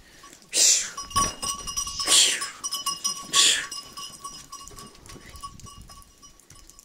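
A man hissing 'shhh' three times, about a second apart, to drive goats on, with a faint steady ringing note underneath.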